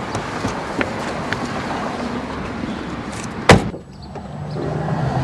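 Steady rumble of vehicle noise, then a car door shutting with one loud thump about three and a half seconds in.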